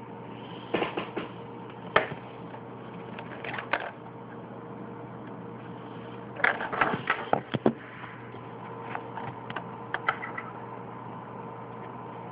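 Handling noise of a small device and its packaging: scattered clicks, taps and brief rustles in irregular clusters, the busiest a little past the middle, over a faint steady hum.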